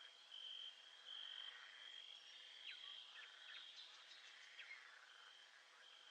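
Faint nature ambience: a high, steady trill that breaks off and resumes several times. A few short, quick chirps come about halfway through.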